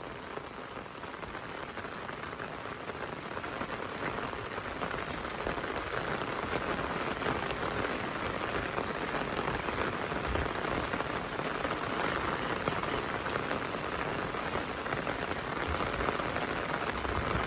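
Heavy rain falling steadily, a hiss of many drops without break, growing a little louder after the first few seconds.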